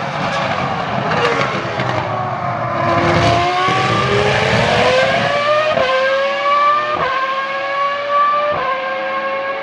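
Ferrari F2002 Formula 1 car's 3.0-litre V10 going through a corner and accelerating away. Its pitch sags, then climbs steadily, and three quick upshifts near the end each drop it suddenly before it rises again.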